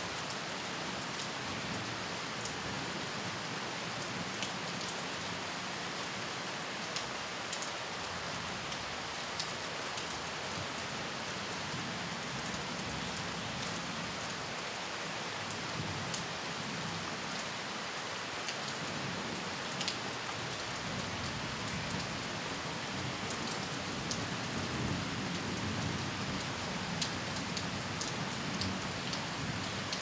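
Steady rain falling on foliage: an even hiss with scattered sharp drop ticks, slightly heavier near the end.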